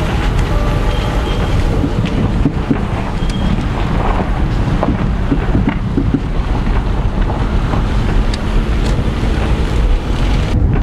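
Steady road noise of a moving car, with wind buffeting the microphone.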